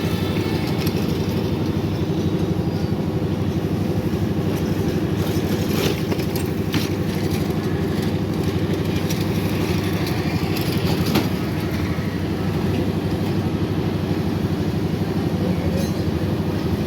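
A steady motor drone, even and unbroken, with a few faint clicks and knocks over it.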